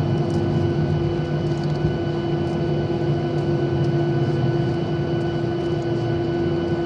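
Cabin noise inside a Boeing 737-800 airliner, its CFM56-7B jet engines running with a steady low hum and a constant held mid-pitched tone.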